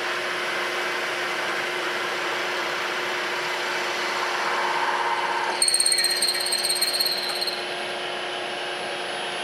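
A milling machine running with a 3/4-inch end mill plunging into a metal plate to bore out a drilled hole: a steady cutting noise over the motor's hum. Just past halfway a high-pitched squeal joins the cut for about two seconds.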